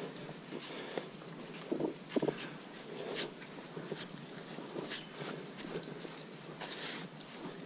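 Footsteps crunching and scuffing on a muddy trail covered in dead leaves, with leaves rustling, in an irregular walking rhythm; two louder steps come about two seconds in.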